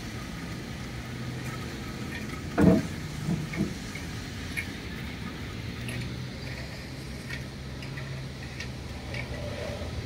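Steady low hum of road traffic coming in through an open window, with one short louder sound about two and a half seconds in and a few faint clicks.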